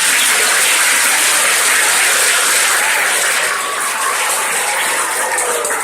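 An audience applauding, a dense steady clapping that starts to die down near the end.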